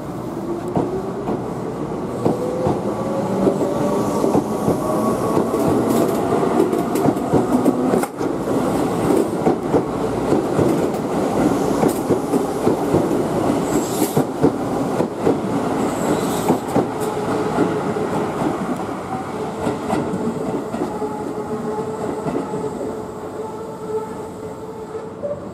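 Keihan electric commuter train pulling away: the motor whine rises in pitch as it accelerates and the wheels click over the rail joints. Near the end a second Keihan train approaches with a steady whine.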